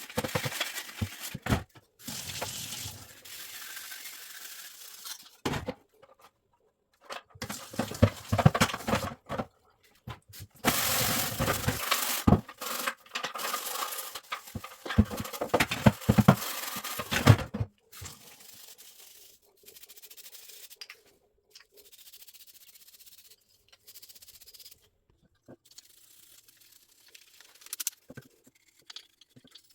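Hands working on the cassette recorder's parts: intermittent scraping, rubbing and clicking, broken by short silent gaps and quieter after about eighteen seconds.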